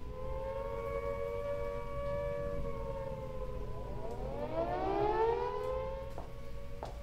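Air-raid sirens sounding an air-raid warning: one wails at a steady pitch, and about four seconds in a second one winds up, rising in pitch over it. A few faint knocks come near the end.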